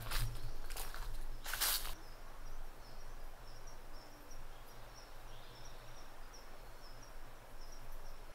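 A few footsteps in the first two seconds, then outdoor ambience with a low rumble and a short high chirp repeating about twice a second. The sound cuts off suddenly at the end.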